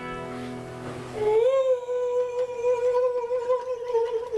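A strummed chord on a nylon-string classical guitar rings out and fades, then about a second in a voice comes in and holds one long, steady high note with a slight waver.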